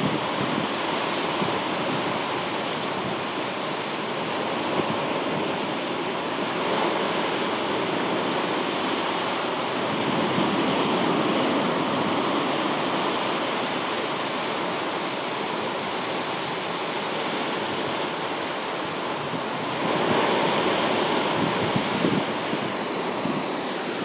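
Storm-driven surf breaking and washing against the foot of rocky sea cliffs: a continuous rushing of water that swells as waves surge in, loudest about twenty seconds in.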